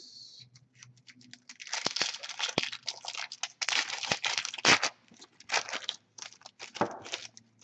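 Foil wrapper of a hockey card pack being torn open and crinkled by hand: a run of crackling with a few sharp clicks that begins about two seconds in and stops near the end.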